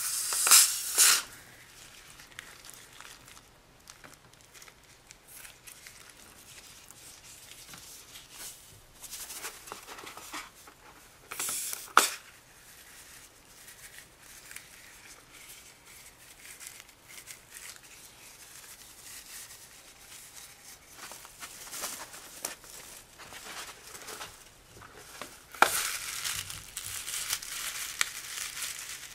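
Rubber balloons filled with slime and beads being snipped open with scissors and the rubber peeled and torn away, a crinkling, tearing sound. It comes in bursts: one near the start, a sharp snip partway through, and a longer spell near the end, with soft handling noises between.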